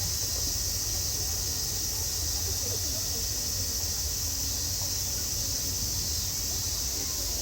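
Steady outdoor background: a constant high-pitched hiss over a low rumble, with faint distant voices.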